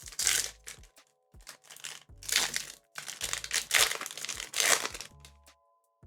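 Foil wrapper of a Pokémon trading card booster pack crinkling and crumpling in three bursts as it is handled, with background music underneath.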